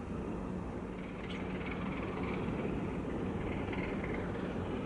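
A steady, low mechanical drone with a constant hum, and an even noise layered over it.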